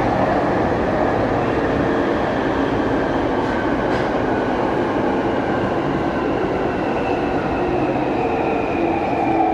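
Jubilee line 1996 stock Underground train running, heard from inside the carriage: a steady rumble of wheels on rail with a faint whine that drifts slowly in pitch.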